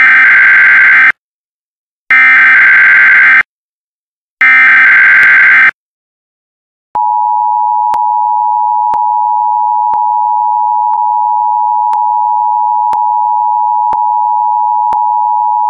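Emergency Alert System opening. Three short bursts of digital SAME header data come about a second apart. From about seven seconds in, the steady two-tone EAS attention signal follows, which signals that an emergency alert message is about to be read.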